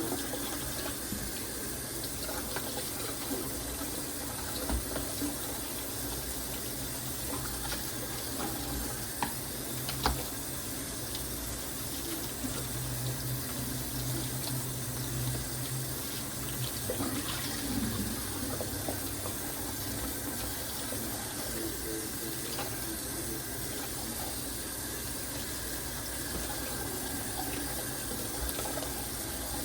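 Tap water running steadily into a sink during dishwashing, with a few light knocks, the sharpest about ten seconds in.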